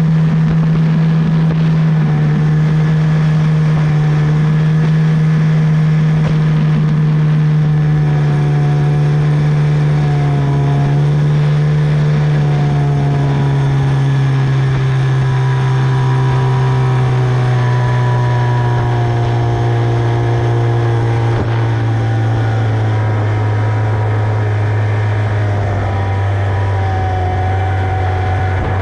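Tohatsu 25 hp outboard motor running under way, a steady loud drone whose revs ease gradually lower over the half-minute.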